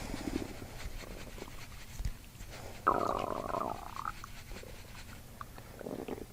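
Stomach and intestines gurgling, a gut release under manual abdominal treatment. Short low gurgles come first, then a louder gurgle of about a second midway and a shorter one near the end.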